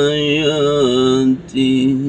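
A man's voice in melodic Quran recitation (tilawah), holding a long wavering note. The voice breaks off briefly about a second and a half in and picks up again.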